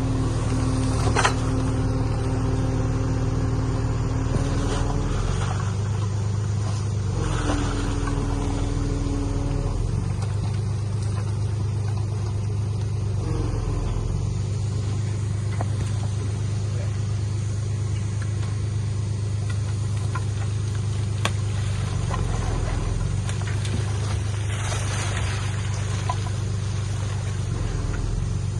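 Heavy diesel engine of earthmoving machinery running steadily under load, a low drone with a higher pitched whine over the first ten seconds. A couple of short sharp clanks come about a second in and again near the 21-second mark.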